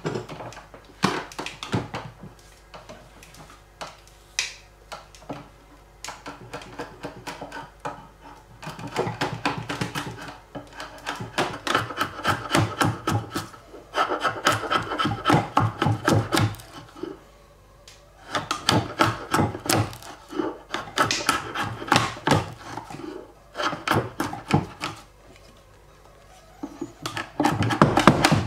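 Drawknife shaving dry cherry wood clamped in a shaving horse: runs of quick rasping cuts as shavings peel off the blank, with short pauses between runs.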